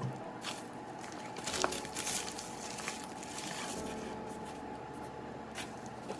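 Light handling noises of small packaging being opened: soft rustling with a few scattered clicks and taps.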